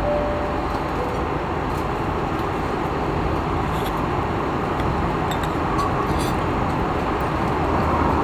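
Steady roar of an airliner cabin in cruise flight, jet engines and airflow, with a few faint clinks of a spoon on a plate.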